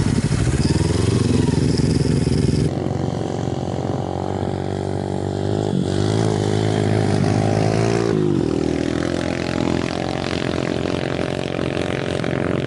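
Motorcycle engine running, its pitch rising and falling as it revs, with abrupt changes in tone a few times.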